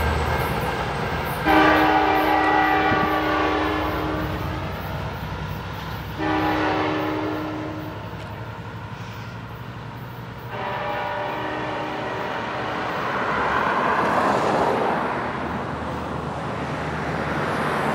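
Diesel passenger locomotive's multi-chime air horn sounding three blasts for a grade crossing: a long one, a shorter one, then another that fades out, over the train's running rumble. After the horn, the train's rumble swells and then eases off near the end.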